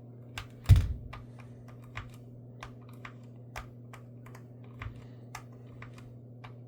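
Small plastic-and-metal clicks and taps from a banana-plug test lead being handled and pushed into a socket to test its grip, irregular, with one louder knock about a second in.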